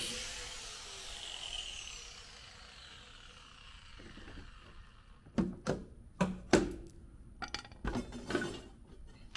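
A power tool's whine falls away as it spins down over the first few seconds. Then comes a run of sharp knocks and clanks, about eight in three seconds, the loudest near the middle, as the riveted side skirt panel is pulled loose from the box truck.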